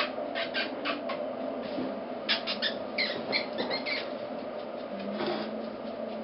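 Four-week-old Border terrier puppies squeaking and whimpering in short, high-pitched bursts that come in clusters: a few near the start, a run in the middle, and one more near the end.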